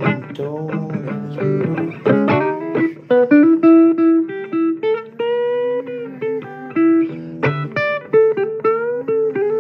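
Blues guitar music: a fast run of single plucked notes, some of them bent in pitch.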